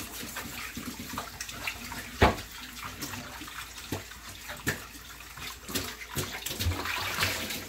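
Kitchen tap running into a sink while pots and utensils clatter, with a loud knock about two seconds in.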